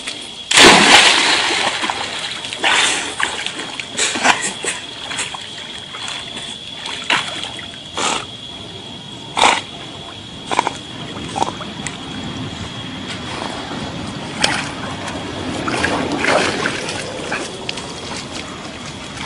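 A dog jumps off the bank into a lake with one big splash about half a second in. Short splashes and sloshing follow every second or two as the dog and a man swim in the water.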